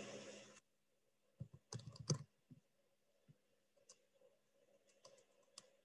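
Near silence broken by faint clicks: a short cluster of sharp clicks and soft knocks about one and a half to two seconds in, then a few single faint ticks.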